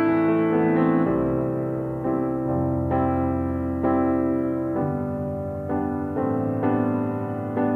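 Background piano music: slow, gentle notes struck about once a second over held chords.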